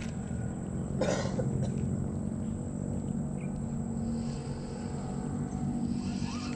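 A steady low hum throughout, with a single short cough about a second in.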